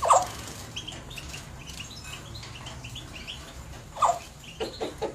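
Pet parrot calling: a short falling whistle, scattered short high chirps, a second falling whistle about four seconds in, then a quick series of short repeated calls, about three a second, near the end.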